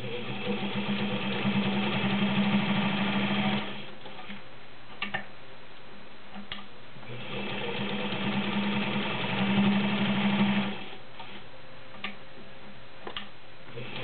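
A White model 130 sewing machine, all metal with a 1.3-amp motor, stitching through five layers of denim. It runs in two stretches, the first about three and a half seconds and the second about four seconds, with a few sharp clicks in the pauses.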